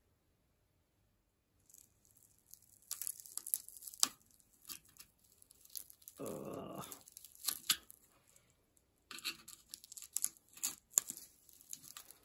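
Old rim tape being peeled off the inside of a rusty chrome-plated bicycle rim: crackling, tearing noises in fits and starts, with a longer rip about six seconds in. The tape is stuck down by rust that has formed between it and the rim.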